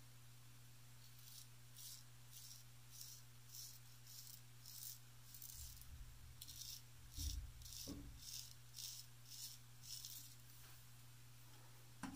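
Faint, short scraping strokes of a full-hollow-ground Wade & Butcher 7/8 straight razor cutting lathered stubble on the jaw and neck, about two strokes a second, with a short pause around halfway. A dull low thump comes just past halfway.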